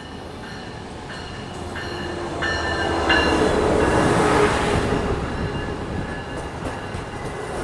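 Amtrak Capital Corridor passenger train, led by a Siemens Charger SC44 locomotive, rolling past along the platform: a rail rumble that builds to its loudest about four seconds in, then eases off. Thin high wheel squeals come and go in the first half.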